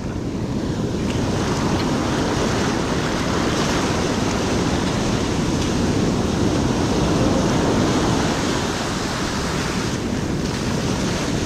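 Ocean surf breaking and washing onto a beach, with wind rushing over the microphone. It is a steady, unbroken wash of noise.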